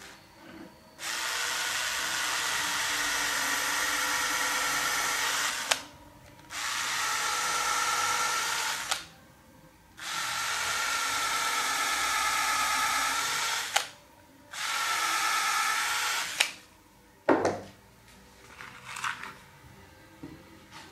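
Cordless drill boring into the end of a turned wooden salt-mill body, run in four bursts of a few seconds each with short pauses between. A single sharp knock follows near the end.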